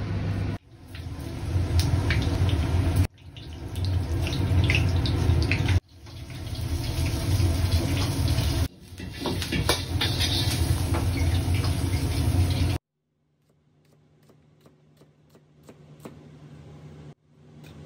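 A gas wok burner on a restaurant range gives a steady loud roar while chicken stir-fries in the wok with crackling sizzle, in several clips that cut off and start again. About 13 s in it gives way to quieter knife strokes on a cutting board.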